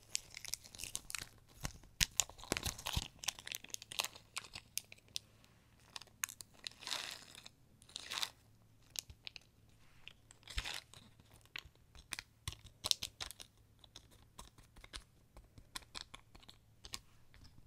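Fingers poking and pressing into a crunchy slime topped with Fimo clay slices and little crunchy bits, making irregular crackling clicks and pops throughout.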